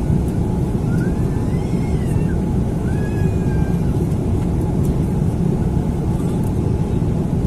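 Steady low drone of engine and airflow noise inside the cabin of an Airbus A330 airliner in flight.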